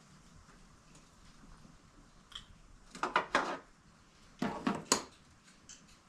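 Clinks and clatter of metal and plastic engine parts being worked by hand, in two short bunches about three seconds and four and a half seconds in.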